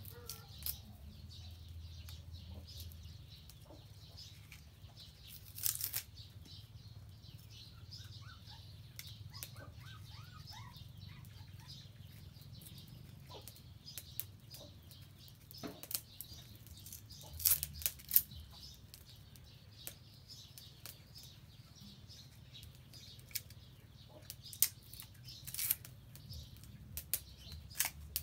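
Small wood fire in a bucket stove crackling, with sharp pops now and then and a few louder snaps. Faint bird chirps about a third of the way in.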